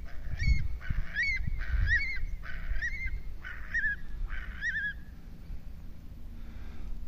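Eurasian curlew calling: a run of about seven rising-and-falling calls, roughly one every 0.7 seconds, ending about five seconds in, over a low rumble.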